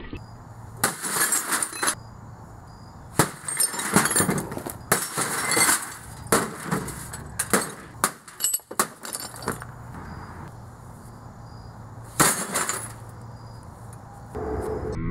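An RCA tube television being smashed, with repeated blows crunching and shattering its glass and shards clinking. About a dozen hits come in quick clusters over the first ten seconds, then a last one about twelve seconds in.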